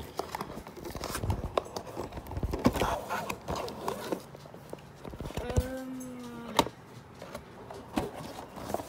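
Cardboard toy box and its packaging being handled and pulled open: irregular scraping, tapping and crackling, with a short hummed voice sound about halfway through.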